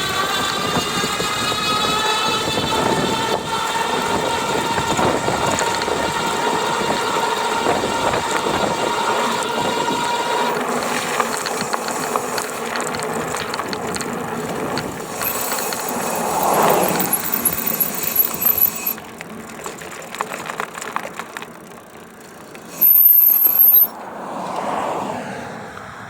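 GoCruiser's electric drive motor whining under power, its pitch creeping up steadily, then cutting off about ten seconds in; after that, uneven mechanical and wind noise, and a short high-pitched beep near the end.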